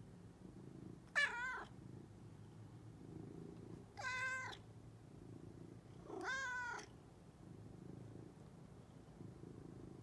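Domestic cat purring steadily, with three short meows: one about a second in, one around four seconds and one a little after six seconds. The first meow is the loudest.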